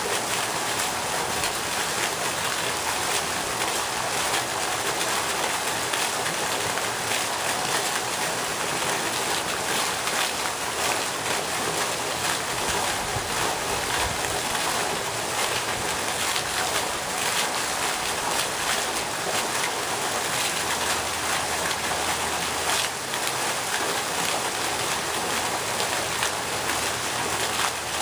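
Vertical fountain jet falling back onto a pond's surface, a steady splashing hiss of water.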